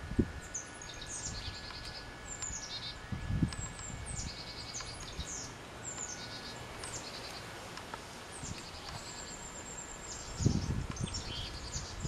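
Unidentified songbirds calling over and over from the tree canopy: sharp high notes that slide downward, mixed with short buzzy trills, repeating every second or so. A few low thumps break in about three seconds in and again near the end.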